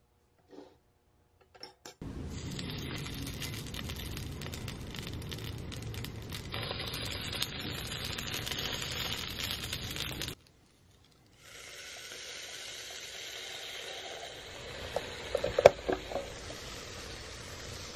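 Croissant dough sizzling on the hot plates of a waffle maker as croffles cook, starting about two seconds in and breaking off briefly partway through. Near the end come a few sharp clicks and clinks from handling the waffle maker, one of them loud.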